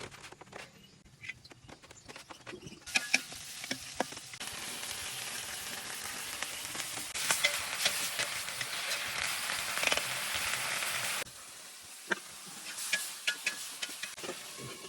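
Food frying in hot oil in a pan, sizzling, with clicks and scrapes of stirring. The sizzle starts abruptly about three seconds in, gets louder around seven seconds, and cuts off suddenly after about eleven seconds, leaving scattered clicks and knocks.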